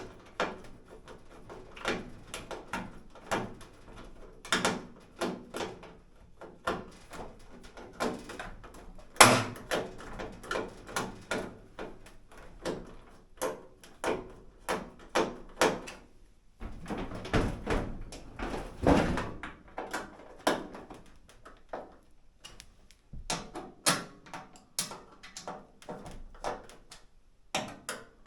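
Irregular clicks and knocks of plastic and sheet-metal dryer parts being handled and fitted together during reassembly of the dryer front, with a longer scraping rub about two-thirds of the way through.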